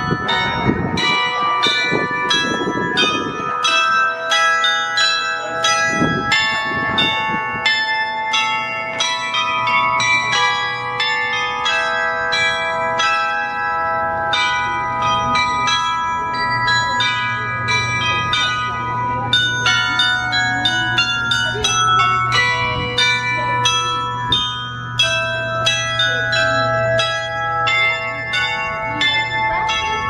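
Set of tuned bells ringing continuously, with many different pitches struck in quick succession at about three strikes a second, each note ringing on under the next.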